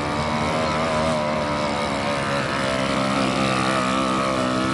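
Small youth quad bike (ATV) engine running steadily as it is ridden on a dirt track, its note shifting slightly about halfway through.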